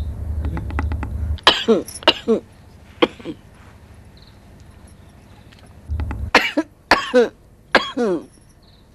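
Low bubbling of a gudgudi hookah's water as an elderly woman draws on it, followed each time by harsh coughing. There are three coughs after the first draw, then a short second draw and three more coughs near the end.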